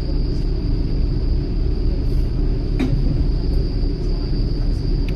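Steady low rumble of a passenger train running along the track, heard from inside the carriage, with a faint high whine throughout and a single light click about three seconds in.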